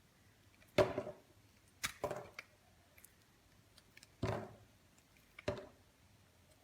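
About five sharp knocks or snaps at uneven intervals, each with a short ringing tail.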